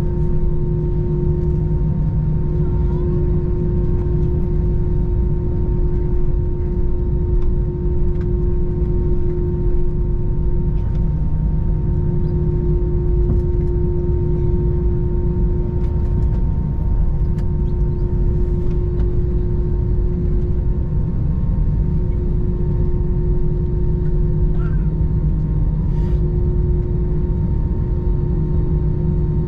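Steady cabin noise inside an Airbus A321 airliner: a low rumble with a steady engine drone carrying several constant hum tones.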